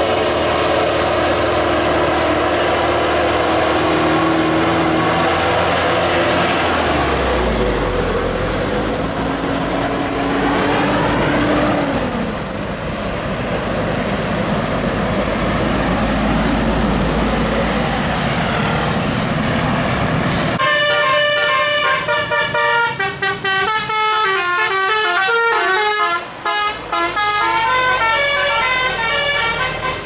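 Heavy bus and truck engines labouring through a bend, with a slow rise and fall in pitch. About twenty seconds in, a bus's musical 'telolet' air horn takes over, playing a quick tune of short stepped notes.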